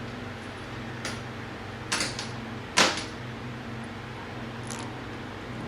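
Four sharp metallic clinks and taps, the loudest nearly three seconds in, as metal engine parts and tools are handled while seating a timing chain.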